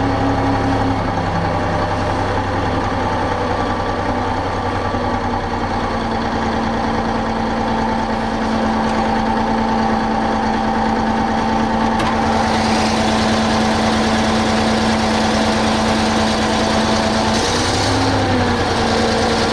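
MAZ-5551 truck's diesel engine running steadily while the truck sits bogged down in a rain-soaked field, its wheels slipping. A rushing noise joins in about twelve seconds in, and the engine speed rises briefly near the end.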